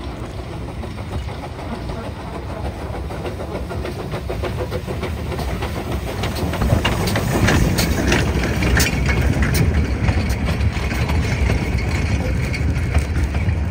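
A narrow-gauge steam locomotive and its short train rolling past close by, with a low rumble that grows louder as it nears. Through the middle, the wheels click sharply over the rail joints as the engine and coach go by.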